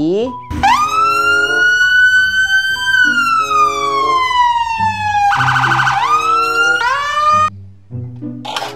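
Police siren wailing: the pitch sweeps up and holds high, falls slowly, breaks into a brief rapid warble, then climbs again before cutting off suddenly.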